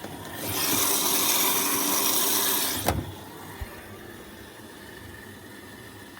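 Zanussi FL984CN washing machine letting water in through its inlet valve mid-cycle: a loud, even hiss about half a second in that stops with a click just before halfway, leaving a quieter hiss.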